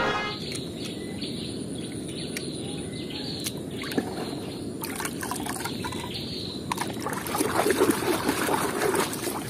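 Thick, wet orange slurry squelching and sloshing as a finger pokes and stirs it in a plastic tub, over a steady low background rumble. The sloshing gets louder and busier near the end.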